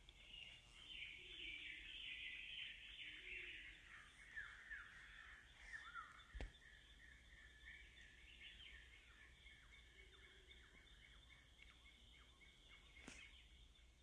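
Faint chorus of several small birds chirping and twittering, many quick falling notes, densest in the first few seconds and thinning out after. A single sharp click about six seconds in.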